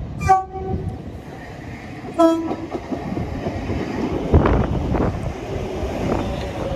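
ScotRail Class 318 electric multiple unit sounding its horn in two short blasts, the second note slightly lower, then running in alongside the platform with its wheels clattering over the track and a loud knock about four seconds in.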